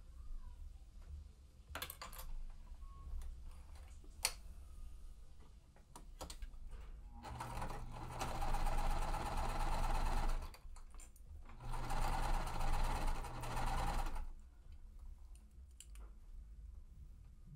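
Sewing machine stitching a quilt seam in two runs of a few seconds each with a short pause between, after a few light clicks.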